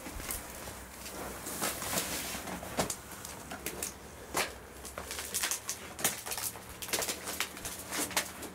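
Irregular footsteps on a debris-strewn bunker floor: scuffs and small cracks as feet tread on loose rubble, broken wood and leaf litter.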